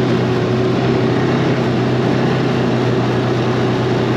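BRP Ski-Doo Tundra 600 ACE LT snowmobile's four-stroke twin-cylinder engine running at a steady speed as the sled travels along the trail, with an even, unchanging engine note.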